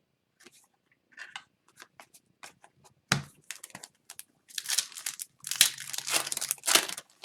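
Foil wrapper of a hockey card pack crinkling and tearing open, loudest over the last few seconds. It is preceded by scattered light ticks and a thump about three seconds in.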